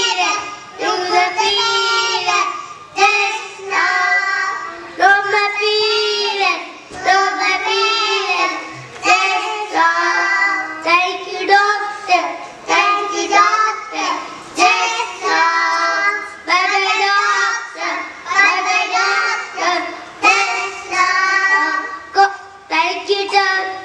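A small group of young children singing together into microphones, in short sung phrases with brief pauses between them.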